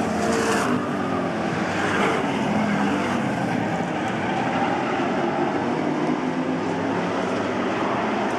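A pack of street stock race cars running at racing speed on a paved oval, their engines blending into one steady, loud drone.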